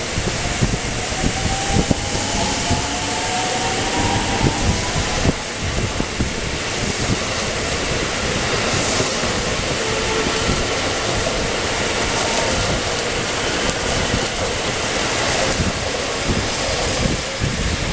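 JR West 223 series electric train moving through the station, its motor whine rising in pitch over the first few seconds as it gathers speed, with wheels clacking over the rail joints. Heavy rain and wind buffeting the microphone run throughout.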